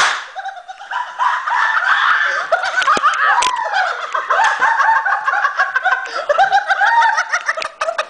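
People laughing hard, with many short high-pitched giggles and snickers, just as a firework's loud hiss cuts off. Two sharp clicks come about three seconds in.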